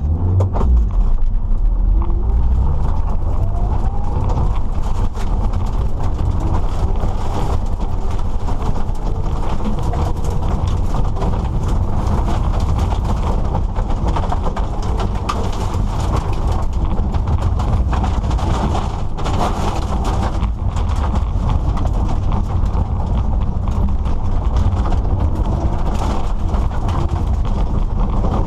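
Mitsubishi Lancer Evolution VII (CT9A) rally car driving with a steady low engine drone under a rapid, continuous clattering knock, the abnormal noise that developed during the session.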